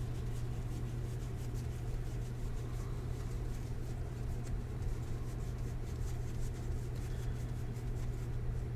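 Trading cards being handled and sorted on a table: faint rustling and light card ticks over a steady low hum.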